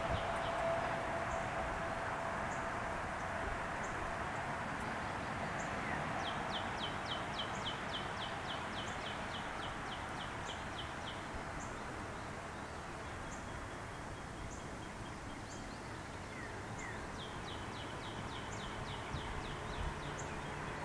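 Small songbirds chirping: a rapid run of short falling chirps about six seconds in and again near the end, with a thin high note repeated about once a second, over a steady background hiss.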